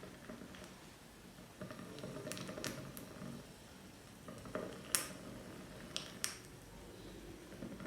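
A handful of faint, sharp clinks and light knocks of hard objects, scattered through a few seconds, the loudest about five seconds in, over a faint low hum.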